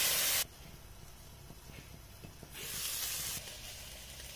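Vegetables sizzling in olive oil in a stainless steel pot, cutting off suddenly about half a second in. After that it is quiet apart from a brief soft hiss about two and a half seconds in.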